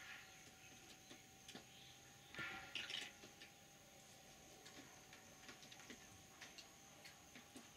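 Near silence with scattered faint ticks and taps, a short scratchy rustle about two and a half to three seconds in, and a faint steady high tone.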